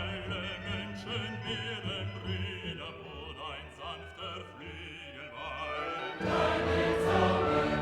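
Background music: a classical piece with wavering, operatic singing over held orchestral notes, swelling fuller and louder with choir and orchestra about six seconds in.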